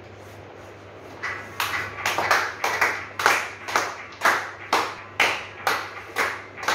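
Hands clapping a steady beat, about two claps a second, starting about a second in, some of them doubled, over a low steady hum.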